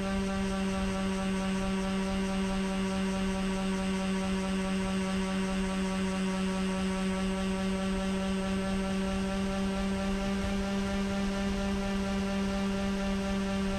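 Twin electric motors and propellers of a Skywalker RC plane running at steady throttle, a constant-pitch hum heard through the camera strapped to the fuselage.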